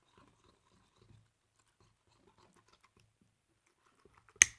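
Spoon stirring thick mug-cake batter in a mug: faint, irregular scraping and soft ticks, then a single sharp tap near the end.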